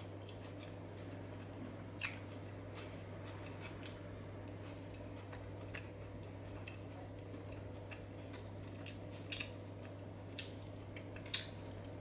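Metal fork clicking and tapping against a glass plate of salad, a handful of scattered sharp clicks with the loudest near the end, over a steady low hum.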